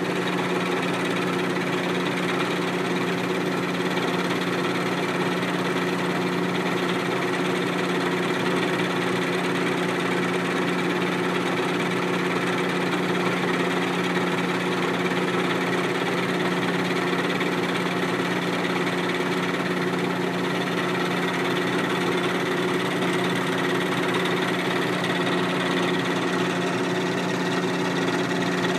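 Milling machine running at a steady speed, with a constant pitched hum and no change in speed or load.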